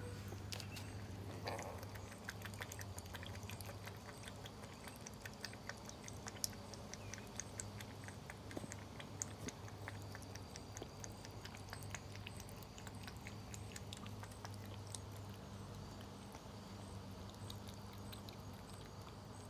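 Cats crunching dry kibble: a steady run of small crunches and clicks over a low steady hum.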